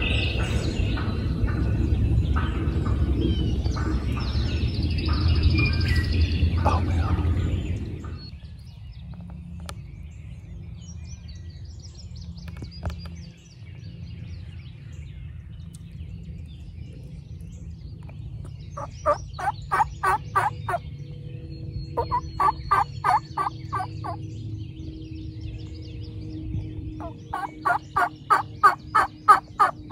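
Wild turkey gobbling: three rattling runs of rapid notes in the last third, each a couple of seconds long. Before that, a loud rushing noise stops about a quarter of the way in.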